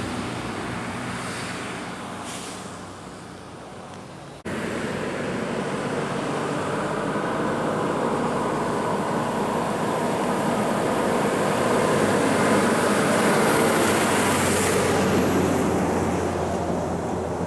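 A heavy diesel truck fades as it pulls away around a bend. Then, after a sudden cut, a Volvo truck and trailer approaches, its engine and tyre noise growing louder until it passes close by near the end.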